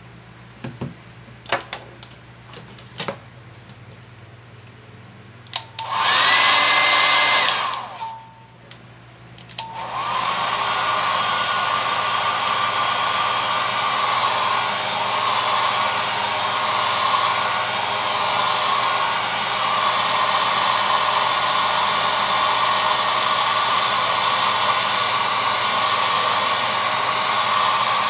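A few small clicks, then a hot-air blower comes on loudly for about a second and a half around six seconds in, stops, and from about ten seconds in runs steadily: a rush of air with a thin whine.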